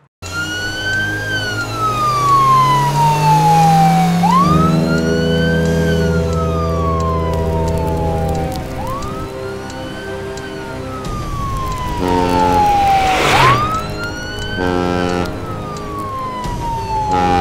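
Police car siren wailing, each cycle rising quickly and falling slowly over about four and a half seconds, with steady low sustained tones underneath. A brief loud rush of noise comes about two-thirds of the way through.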